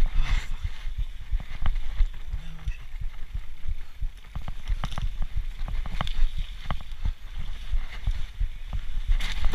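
Specialized Turbo Levo electric mountain bike ridden fast over rough, boggy ground: a steady low rumble with frequent sharp knocks and rattles as the bike jolts over bumps.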